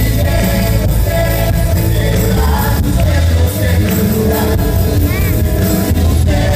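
Live band playing with singing, loud, over a heavy bass line.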